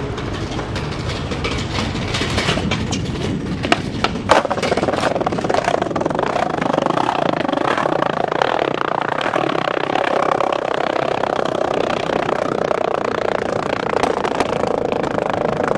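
Small hard wheels rolling over concrete pavement in a steady rumble, with a run of sharp clacks and knocks a few seconds in.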